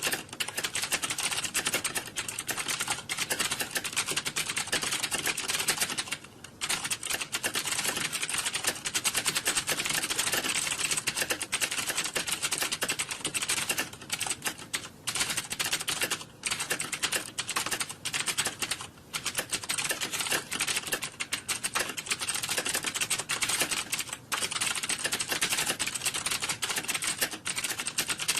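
Computer keyboard being typed on fast and without letup, a dense rattle of key clicks that breaks off briefly a few times.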